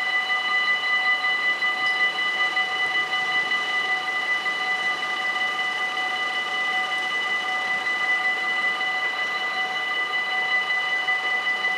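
Electric warning bells of a Dutch automatic half-barrier (AHOB) level crossing ringing continuously, a steady high metallic ringing of several bells together, sounding because the crossing is closed for an approaching train.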